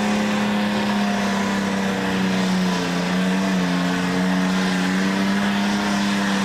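Super stock pulling tractor's engine running hard at full throttle during a pull, a loud steady high-revving drone. The pitch sags slightly about halfway through, then holds.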